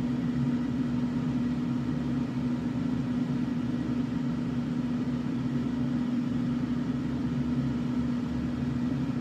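Steady low machine hum, even and unchanging, with one strong low droning note.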